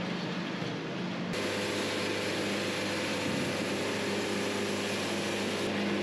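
Wood-Mizer LT70 bandsaw sawmill running: a steady diesel-engine hum with a hiss that grows brighter about a second in.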